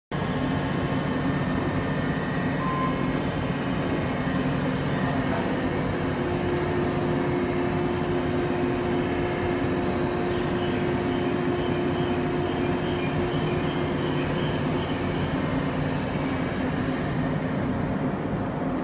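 JR 115 series electric train standing at the platform with its onboard equipment running: a steady machine hum with several held tones over a constant noise.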